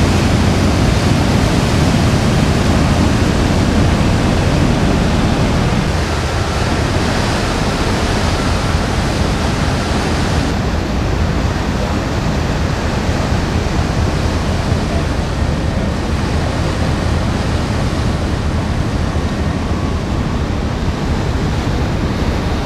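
Steady rushing noise on the deck of a moving ferry, from churning wake water and wind, over a low steady hum. About ten seconds in the sound turns duller as the high hiss drops away.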